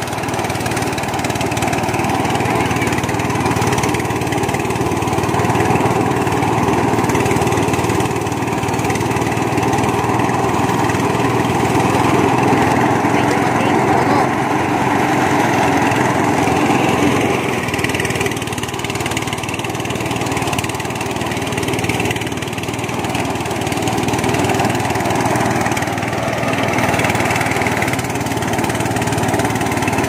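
An engine running steadily, its level easing slightly a little past halfway.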